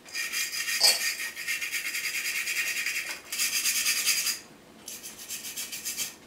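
A hand wire brush scrubbing a 3D-printed model made of iron-filled PLA plastic, with rapid back-and-forth scratchy strokes. The scrubbing comes in two long runs, with a short break about three seconds in, and goes fainter for the last couple of seconds. It is roughing the surface to expose the iron particles so the print can be rusted.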